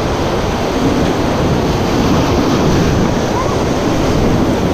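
Whitewater rapids rushing loudly around a raft as it runs through them, with spray washing over the bow. A steady, dense noise.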